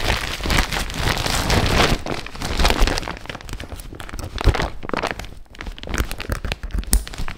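Dyneema dry bag crinkling as it is handled and its roll-top is folded over: a continuous crisp crackle, dense with many sharp crackles.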